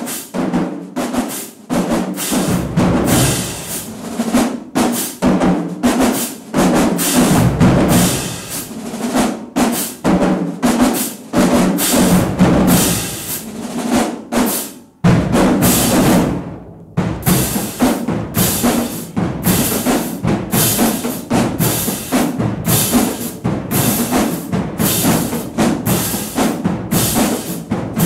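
Marching band drumline playing a cadence: snare drums, tenor drums, bass drums and cymbals in fast, driving rhythms, with a brief break about fifteen seconds in.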